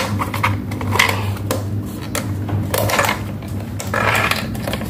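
The plastic control box of an industrial sewing machine's servo motor being worked loose and pulled off the motor housing: irregular clicks, knocks and rattles, over a steady low hum.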